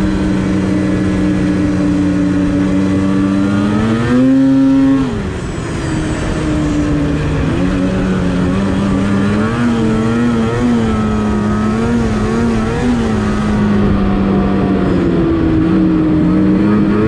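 Polaris Switchback Assault two-stroke snowmobile engine running at a steady trail cruise. About four seconds in it rises in pitch and gets louder with a short burst of throttle, then drops back. Later its pitch wavers up and down for a few seconds with small throttle changes before settling steady again.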